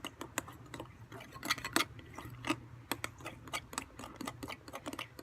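A spoon stirring glue and shaving foam in a bowl, clicking and knocking against the bowl many times in a quick, irregular rhythm.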